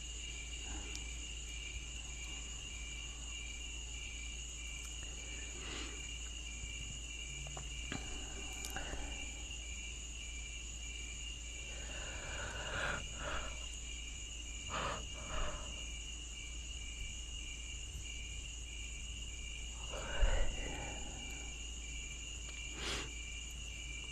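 Steady high-pitched trilling with a faster pulsing chirp beneath it, over a low hum. A few soft breathy sounds come and go, the loudest about twenty seconds in.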